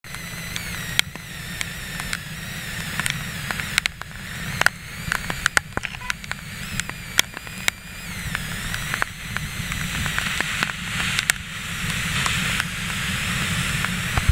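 Storm wind buffeting the microphone in a heavy, steady rumble, with raindrops striking the camera in sharp, irregular clicks. A rushing hiss of wind and breaking surf grows louder in the second half.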